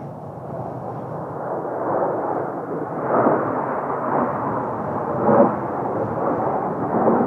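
Kawasaki T-4 jet trainers passing, their turbofan engines making a rumbling roar that builds over the first two seconds and then holds, swelling a few times.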